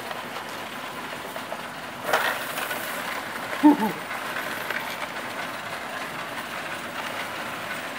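Coin-counting machine running, loose coins clattering steadily through its sorting mechanism, with a louder rattle about two seconds in as more coins are poured into the tray.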